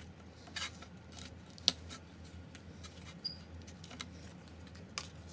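Model-kit parts being popped out of their sheet, with a few sharp clicks and snaps; the loudest is just under two seconds in.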